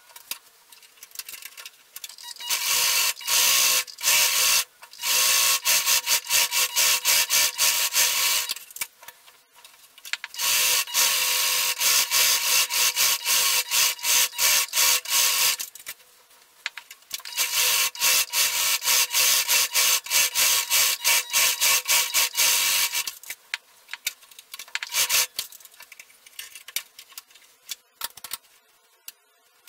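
Singer domestic sewing machine sewing a zigzag stitch. It runs in three stretches of about five or six seconds each, with a rapid, even rattle of needle strokes and short stops between, then a brief run near the end.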